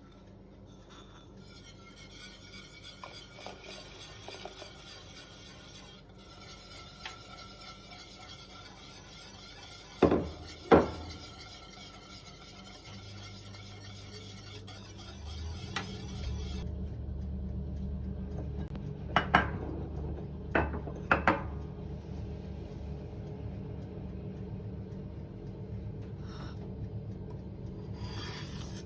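Kitchen sounds: a utensil rubbing and scraping rhythmically against cookware, with two loud knocks about ten seconds in. About halfway a low steady hum begins, and a few sharp clinks of dishes or cutlery follow.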